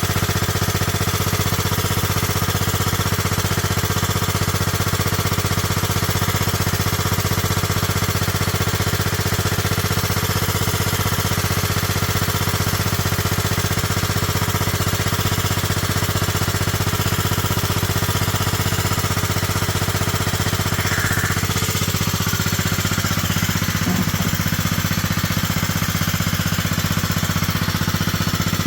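1998 Kohler Command 16 hp riding lawn mower engine running steadily with a fast, even pulse, back in running order after sitting parked for a year.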